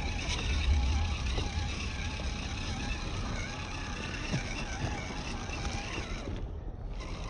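Radio-controlled Mercedes 6x6 scale crawler's electric motor and geartrain whining as it crawls over loose rock, the whine wavering in pitch with the throttle. A low rumble runs underneath. The whine drops away about six seconds in.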